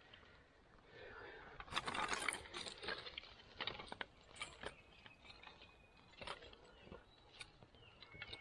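Dry grass-and-twig tinder rustling as thin split kindling sticks are laid onto a freshly lit fire, loudest about two seconds in. Scattered sharp crackles and wooden clicks follow as the small sticks are placed and begin to catch.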